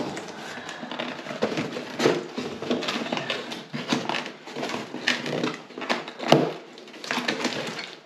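Irregular rustling and knocking of cardboard and plastic packaging as parts are unpacked from a parcel, with one sharp knock about six seconds in.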